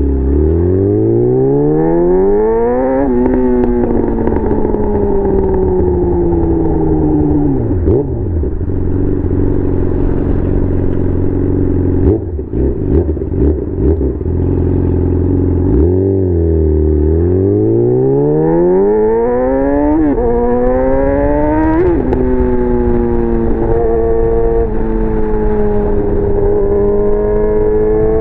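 2019 Yamaha R6's inline-four through a Leo Vince aftermarket exhaust, under way: it revs up and shifts about three seconds in, then winds down for several seconds. After a few seconds of choppy, uneven sound it pulls up through the revs again, shifting twice, and settles into a steady cruise near the end.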